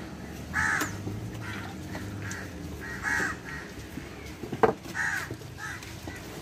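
Crows cawing repeatedly, in short harsh calls. A single sharp knock about two-thirds of the way through is the loudest sound.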